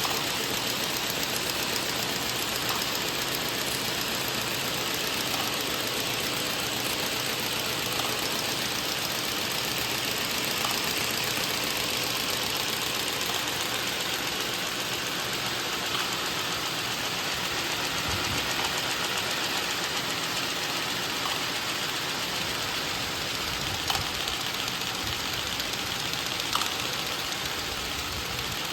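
Combination buckle folding machine for pharmaceutical leaflets running steadily: an even mechanical whir with a few faint clicks.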